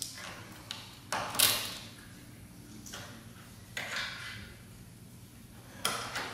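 Plastic wiring connectors and wire clips being handled and pushed into place by hand while hooking up the hood-latch actuators: several short scrapes and clicks, the loudest about a second and a half in.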